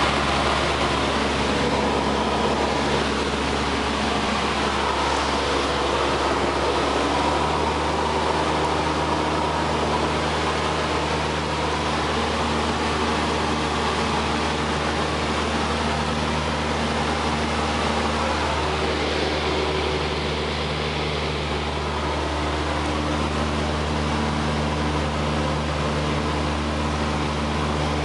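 Single-engine light aircraft's piston engine and propeller drone, heard from inside the cabin. The pitch of the drone shifts about seven seconds in, and it eases off slightly about twenty seconds in.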